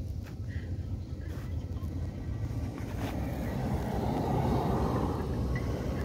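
A small hatchback car driving past, its tyre and engine noise swelling to a peak about four to five seconds in, over a steady low rumble.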